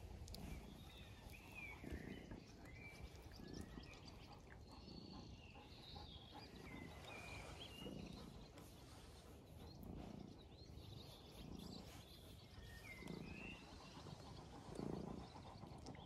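A cat purring close by in slow, rhythmic in-and-out pulses, a pulse every second or two, while being licked and groomed by a dog. Birds chirp faintly in the background.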